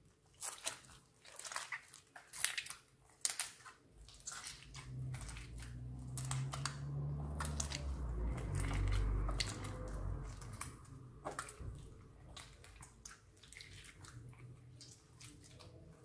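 Homemade pink glitter slime squeezed and kneaded between the hands, giving a run of sticky clicks and pops, with a low rumble in the middle. The slime is fairly stiff and tears rather than stretching.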